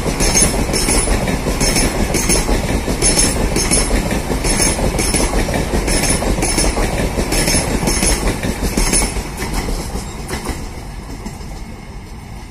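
LHB passenger coaches of an express train rolling past at speed, a steady rumble with the wheels clicking in pairs as each bogie goes by. The clicks stop and the rumble fades from about ten seconds in as the last coach passes and the train draws away.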